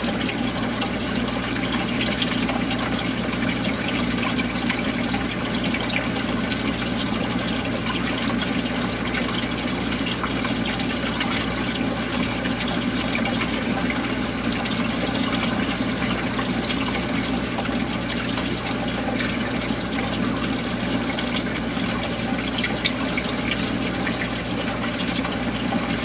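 Steady running and trickling water of a reef aquarium's water circulation, unchanging throughout, with a low steady hum underneath.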